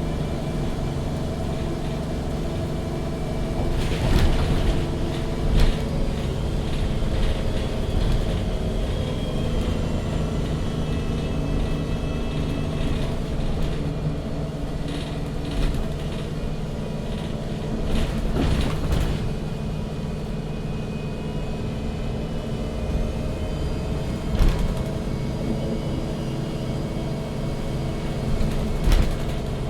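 MAN NG 313 CNG articulated bus, its natural-gas engine running steadily, heard from inside the bus. Low rumble with a steady drone, and a few short knocks and rattles now and then.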